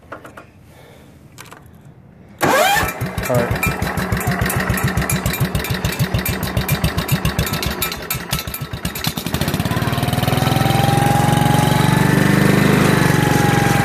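Wheel Horse garden tractor engine started with the key: about two and a half seconds in it fires up and runs with an uneven, pulsing beat, and about nine seconds in it settles into a steady, louder run.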